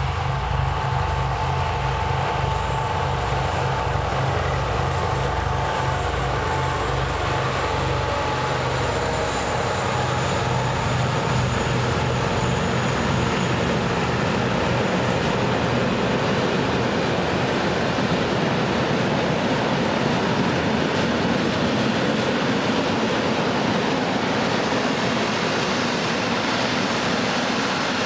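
Two DB Class 217 diesel-hydraulic locomotives hauling a freight train pass close by, with a deep pulsing engine throb and a steady whine for the first ten seconds or so. After that the even rumble of the tank wagons rolling along the rails takes over.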